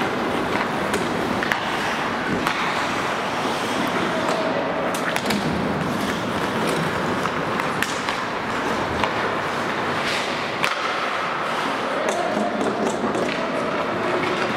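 Ice hockey play on an indoor rink: skate blades scraping and carving on the ice as a steady noise, with many short sharp clacks of sticks and puck through it, and faint player calls now and then.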